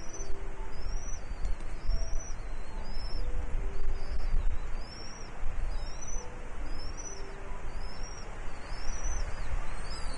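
A bird repeating a high, arching whistled call about once every three-quarters of a second, over a steady low wind rumble.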